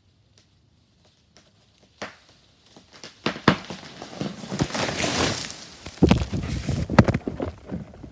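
A felled tree coming down: a swelling rush and crackle of branches tearing through foliage, with several sharp cracks and crashes, after about two seconds of quiet.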